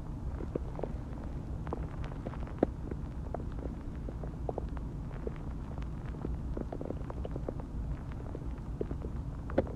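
Human stomach growling and gurgling as it digests a meal of food and water: a continuous low rumble with frequent short pops and gurgles. The sharpest pop comes about two and a half seconds in, and another comes near the end.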